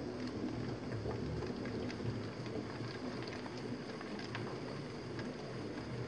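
Electric pottery wheel running with a steady hum while a trimming tool scrapes a leather-hard clay bowl, with faint scattered ticks of clay shavings coming off.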